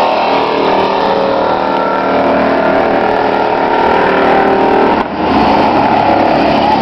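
Engines of several demolition race trucks running together as they lap a speedway oval: a loud, steady mix of engine noise. The level dips briefly about five seconds in.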